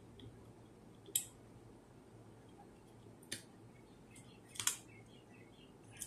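A few light, sharp clicks and ticks of a small screwdriver and the plastic shell and parts of a dashcam being handled during disassembly. There are single clicks about a second in and about three seconds in, then a louder double click.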